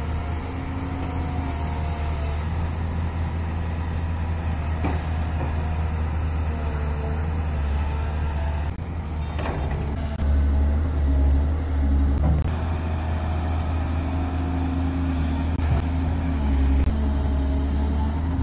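Excavator's diesel engine running steadily with a deep drone. It grows louder for a couple of seconds about ten seconds in, as if working under load.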